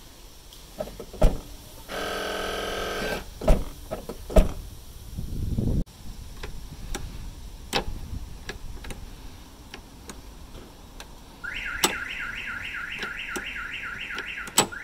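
Volkswagen Golf V estate tailgate being opened. Sharp clicks and a short electric buzz come as the lock releases, then a rising rush as the tailgate lifts, then occasional single clicks as the latch is worked by a finger. Near the end a fast run of repeated rising chirps starts, about three or four a second.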